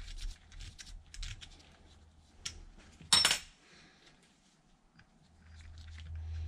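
Light metal-on-metal clicking and scraping as a small hand tool cleans the rusty threads of a cast-iron lathe chuck back plate, then one sharp metallic clank with a short ring about three seconds in. A low steady hum comes in near the end.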